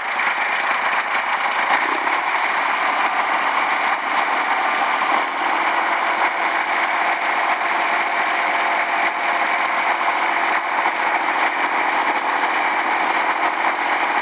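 Tractor engine running steadily at idle, its note shifting slightly about five seconds in.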